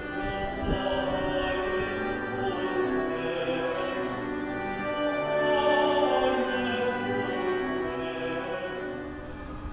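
Music with singing: voices holding long, slowly changing notes.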